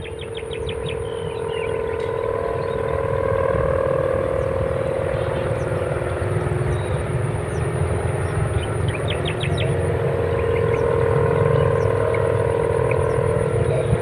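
Sendaren kite hummer on a peacock-shaped kite humming in the wind: a steady drone that swells and fades twice as the gusts vary, over a low wind rumble.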